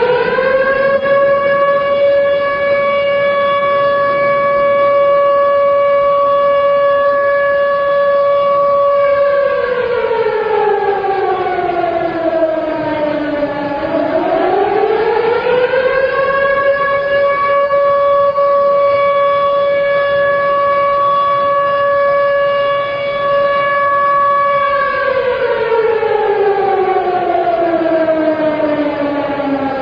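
Civil-defence air-raid siren wailing in mourning for earthquake victims. It rises to a long steady tone, glides down and back up about halfway through, holds the tone again, and starts to fall near the end.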